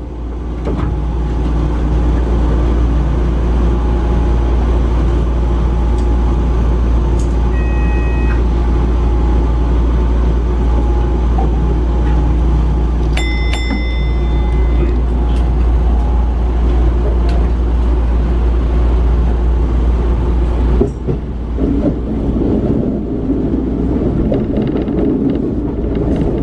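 Sotetsu Line electric commuter train heard from the front of the car: a steady loud rumble and hum, with brief high tones about eight and thirteen seconds in. The low rumble drops and the sound changes about 21 seconds in.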